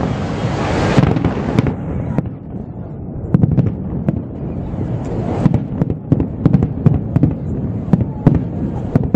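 Aerial firework shells bursting in a rapid, irregular series of bangs, with a hissing crackle in the first second or so.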